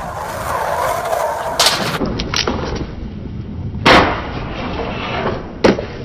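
Skateboard wheels rolling on concrete, with sharp clacks of the board. The loudest comes about four seconds in as the board lands on a metal rail for a 50-50 grind, and another comes shortly before the end as it lands back on the ground.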